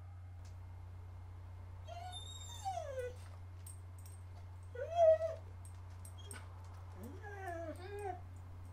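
Three high, whining whimpers that slide up and down in pitch, about two, five and seven seconds in, the middle one the loudest. A steady low hum runs underneath, with faint scattered ticks.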